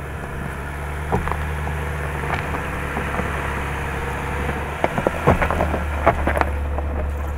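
Jeep Grand Cherokee's 3-litre six-cylinder engine running at low revs as the SUV crawls over rocky ground. Sharp clicks and cracks of stones under the tyres come through it, most of them between about five and six and a half seconds in.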